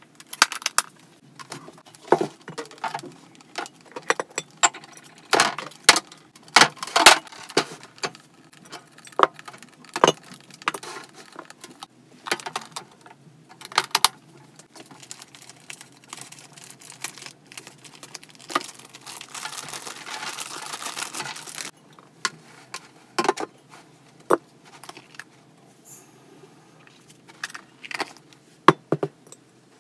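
Hamster cage parts and accessories clattering and knocking as they are handled, in irregular clicks and rattles. A steady rushing noise runs for about three seconds past the middle.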